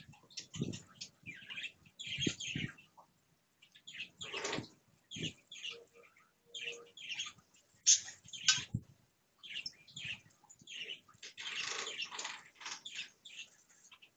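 Chickens dust bathing in dry dirt: irregular bursts of rustling and scattering as they flick loose dirt with their wings and scratch, with a few dull thumps.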